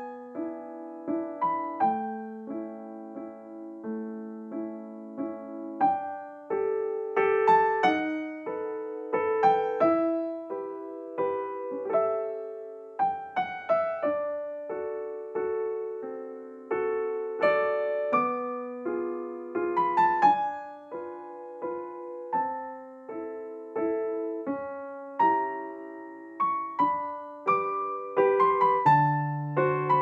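Background music played on a keyboard or piano: a gentle melody of single struck notes over chords, each note ringing and fading away.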